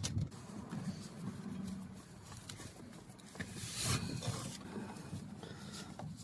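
Faint handling noises with a few light clicks and a rustle about four seconds in, as the charger's positive and negative leads are connected to the battery wiring.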